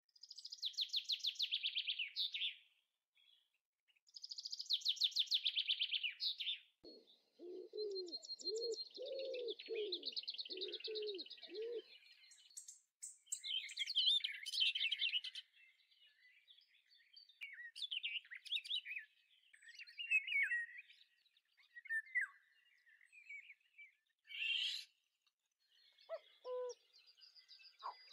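Birds singing: two loud, fast trills of high chirps in the first few seconds, then a run of low repeated hooting notes, followed by a mix of shorter chirps and whistles.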